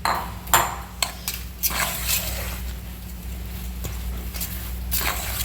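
Damp rice rava and finely chopped colocasia leaves being mixed together in a bowl, heard as irregular scraping, rustling strokes. A low steady hum runs underneath.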